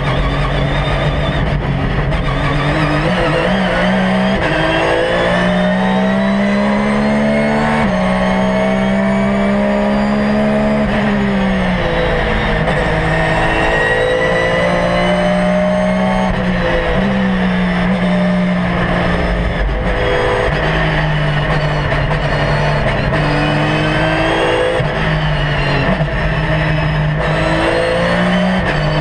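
Porsche 911 GT3 R race car's naturally aspirated flat-six, heard from inside the cockpit under hard driving. The engine note climbs steadily and drops sharply again and again, about half a dozen times, as the car changes gear and lifts off.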